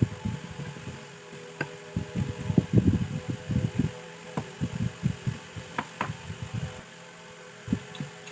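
Irregular light knocks and a few sharp clicks of metal parts being handled and worked on, over a steady hum. The knocks are busiest in the middle and thin out near the end.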